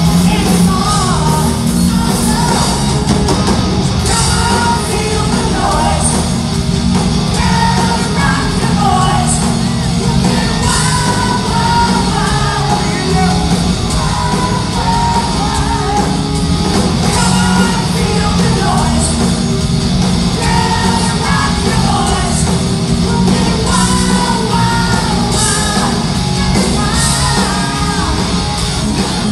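A hard rock band playing live and loud: a male singer over electric guitar, bass and drums.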